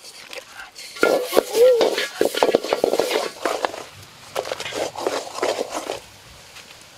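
Wooden spatula scraping and knocking around a wok, stirring sauce-coated chicken as it sizzles. The scraping is busiest from about a second in and thins out near the end.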